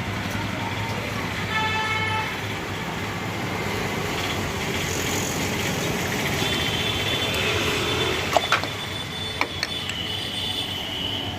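Street traffic noise with a vehicle horn tooting briefly about a second and a half in, a thin high tone sounding on and off in the second half, and a few sharp clicks near the end.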